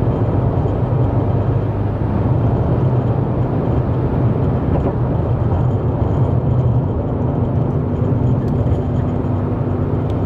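Steady low drone of a truck's engine and road noise, heard from inside the cab while driving.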